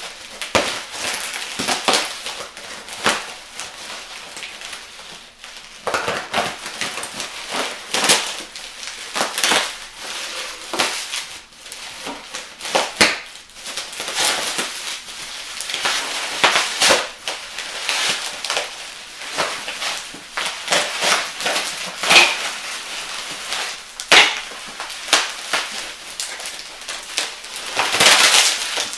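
Plastic bubble wrap crinkling and crackling as it is cut and pulled off an exhaust header, in an irregular run of sharp crackles.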